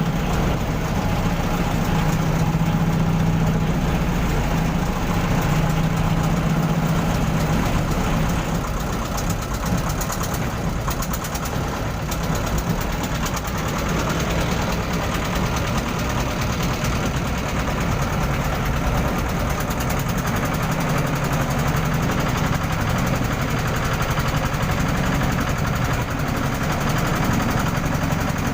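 An engine running steadily at an even speed throughout.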